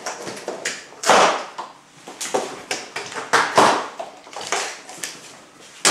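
A large cardboard TV box being handled and shifted: an irregular string of scrapes, rustles and knocks, loudest about a second in and again around three and a half seconds.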